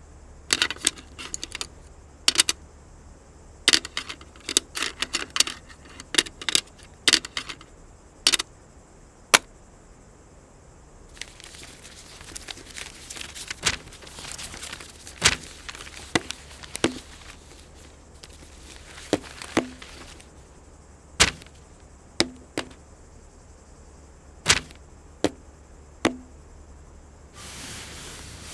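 A series of sharp, irregular clicks and taps, coming in quick clusters at first and then spaced out one or two at a time, with a stretch of soft rustling noise in the middle.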